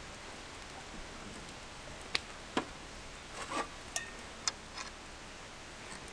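A handful of short, light clicks and clinks of tableware during a meal, one of them ringing briefly, scattered through the middle of a few seconds.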